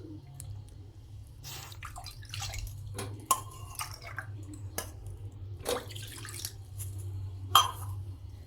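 Water poured from a tumbler into a pan on the stove, splashing and dripping, with scattered clinks of the metal vessels; the sharpest clink comes near the end.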